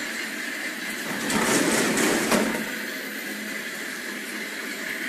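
Rotary ice cream cone baking machine running with a steady mechanical drone. About a second in, a louder rushing noise rises for about a second and ends in a sharp click.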